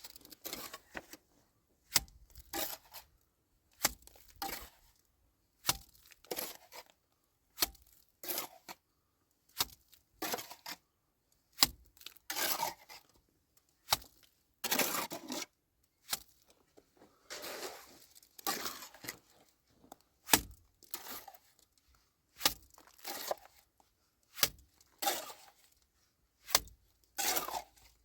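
Repeated scraping strokes at irregular intervals of one to two seconds, many of them starting with a sharp knock.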